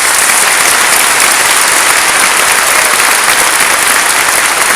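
Large audience applauding, a dense steady ovation for the newly qualified baptism candidates.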